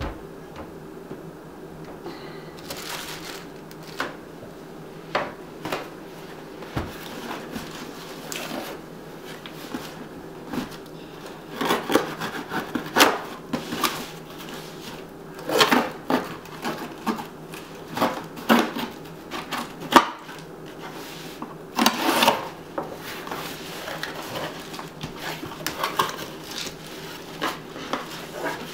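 A cardboard shipping box being handled and opened on a table: irregular knocks and scrapes of cardboard, a knife slitting the packing tape, and flaps and packing rustling, loudest and busiest in the middle stretch. A low steady hum runs underneath.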